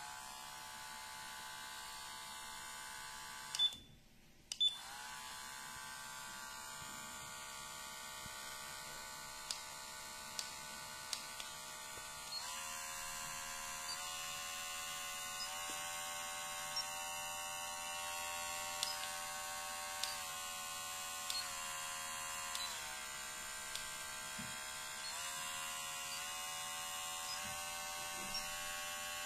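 Cordless hair and beard clipper motor running with a steady electric buzz. It is switched off about four seconds in and back on a second later, with short beeps. Its pitch steps up around twelve seconds in as the speed setting is raised, then shifts down and up again later, with small button clicks.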